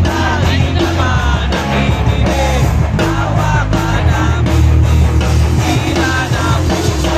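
Live pop punk band playing loud: distorted electric guitars, bass and drums, with the lead singer's voice over them.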